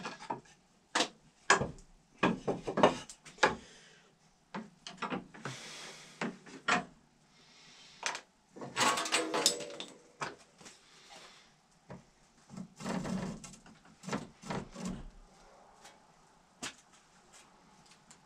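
Irregular wooden knocks, clacks and short scrapes from handling a hickory ramrod blank and a handsaw at a workbench, with a longer scraping stretch about halfway through.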